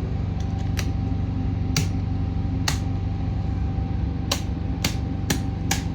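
A series of sharp clicks, about seven, as electrical switches are flipped to turn things off, over a steady low mechanical hum with a faint steady high tone.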